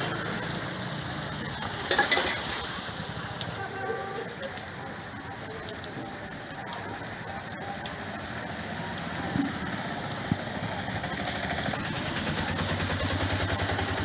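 Steady rain falling on a waterlogged street. Near the end an auto-rickshaw's engine comes in and runs steadily.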